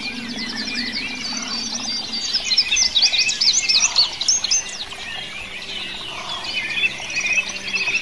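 Several songbirds singing at once in a dense chorus of high chirps and trills. A louder flurry of quick notes, rising and falling in pitch, comes about two and a half seconds in and lasts about two seconds.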